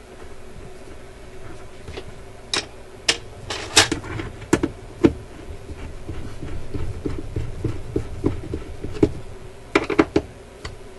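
Screwdriver and small screws handled and driven into a wooden record-player case: irregular sharp clicks and knocks of metal on wood, bunched a few seconds in and again near the end, over a faint steady hum.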